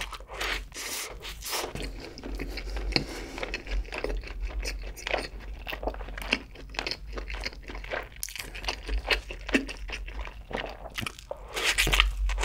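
A bite into a double cheeseburger, then chewing with many small clicks, and another louder bite near the end.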